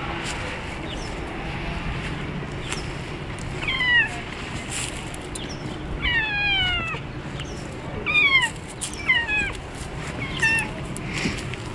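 Domestic cat meowing repeatedly: about five squeaky calls, each falling in pitch, with the longest about six seconds in.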